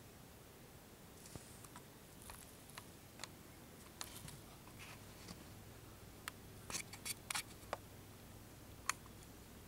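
Quiet room with scattered small sharp clicks and ticks, loudest in a quick cluster about seven seconds in and a single sharp click near the end.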